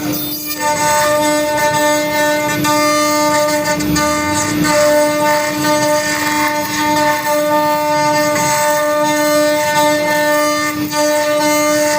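CNC router spindle running with a steady high whine while cutting wood, the tone dipping briefly a few times.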